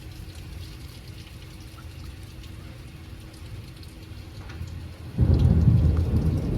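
Thunderstorm: steady rain with a low background rumble, then a loud clap of thunder breaks in about five seconds in and keeps rumbling.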